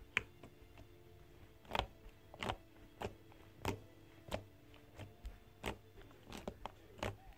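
Fluffy slime being squished and stretched by hand, giving a string of small sticky clicks and pops, irregular, roughly one or two a second.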